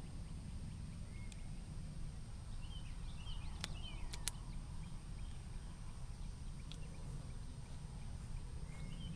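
Small birds chirping in short calls over a steady low rumble, with two sharp clicks a little before halfway through.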